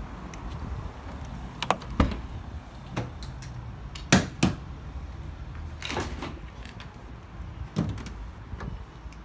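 Rear barn doors of a Volkswagen Transporter van being unlatched and swung open: a series of sharp clicks and knocks from the handle, latches and door catches, the loudest pair about four seconds in.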